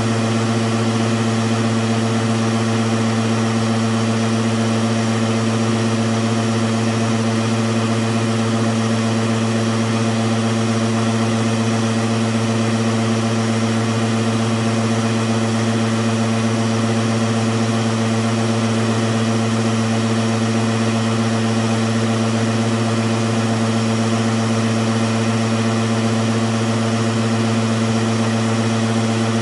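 Redesigned hematocrit centrifuge, its motor driven through a thyristor-and-DIAC speed regulator, spinning at speed partway through a test run: a loud, constant hum that does not rise or fall.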